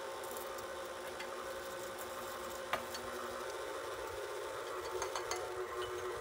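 KitchenAid Artisan stand mixer running steadily, its flat beater working wet ingredients into dry ones to make a shaggy dough. A motor hum is heard, with a few light clicks.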